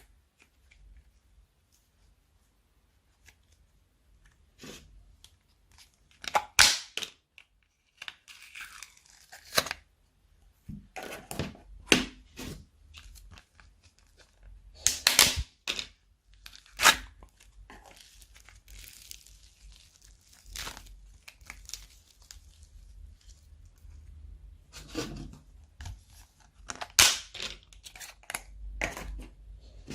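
Slime being mixed and squished, giving irregular sharp pops and snaps every second or two, with softer crackling in between. The first few seconds are nearly quiet.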